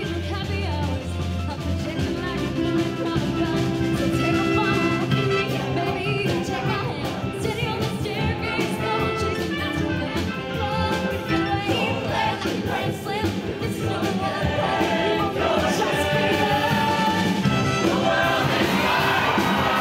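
Mixed show choir of boys' and girls' voices singing an upbeat number in parts over an instrumental accompaniment with a steady beat.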